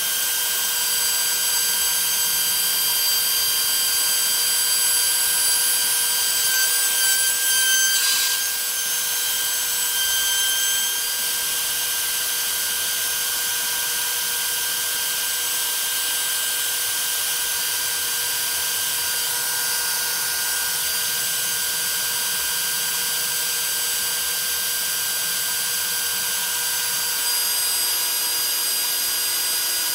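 DeWalt 611 router spinning an end mill on a CNC machine, milling a quarter-inch aluminium plate: a steady high whine with the hiss of the cut, and a brief rougher burst about eight seconds in.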